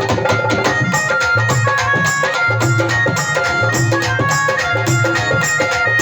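Dhol drumming in a fast, steady rhythm of many strokes a second, under a melody instrument playing held notes in traditional folk music.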